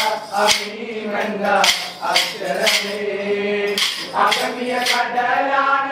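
Wooden sticks of a kolkali stick dance clacking together, about two sharp clacks a second, over a sung accompaniment.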